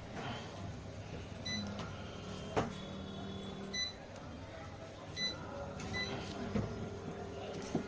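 Several short electronic beeps, about one every second or two, among clicks and rustles of small objects being handled, with a loud click about two and a half seconds in.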